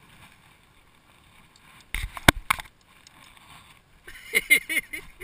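A cluster of sharp knocks and clatter about two seconds in, then a short run of human voice sounds near the end.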